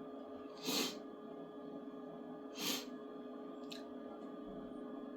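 Elegoo Neptune 4 Max 3D printer running quietly while homing, a low steady hum with several faint constant tones. Two short breathy puffs come close to the microphone, under a second in and again near three seconds in, and there is a faint click shortly after.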